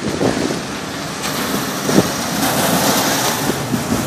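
Wind rushing over the microphone and tyre noise from a bicycle riding on asphalt, with a few short knocks, the sharpest about two seconds in.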